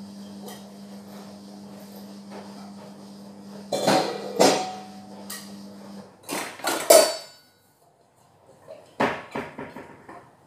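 Metal pots and pans clanking and knocking together as they are handled, wiped with a towel and set down, with loud clangs about four, five, six and a half, seven and nine seconds in. A steady low hum runs underneath and stops about six seconds in.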